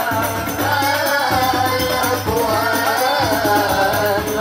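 Male voices singing an Islamic devotional song (sholawat) in qasidah style into microphones over amplification, a wavering melodic line, accompanied by steadily beaten rebana frame drums.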